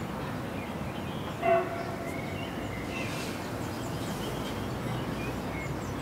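Steady outdoor background rumble with small birds chirping now and then, and one brief louder pitched call or toot about one and a half seconds in.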